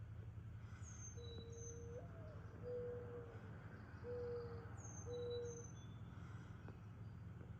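Mourning dove cooing faintly: a long first note that slides up and back down, then three lower, steady coos. Thin, high downslurred notes of a small songbird come in between, over a steady low rumble.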